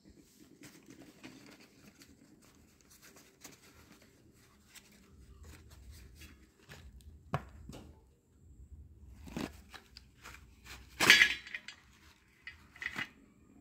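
Cardboard boxes of slate pencils and their paper wrapping being handled and torn open, with light rustling and small clicks. A few sharper clatters come from slate pencils knocking against a metal pan, the loudest about eleven seconds in.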